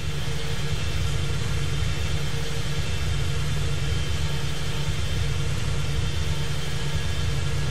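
Steady airliner cockpit background noise in flight: a constant low rumble with an even airflow hiss and a faint steady hum.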